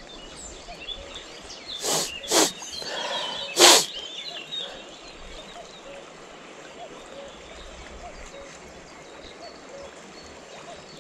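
Steady rushing of a mountain river with birds chirping. About two seconds in come three short, loud rustling noises, the last and loudest a little after three and a half seconds.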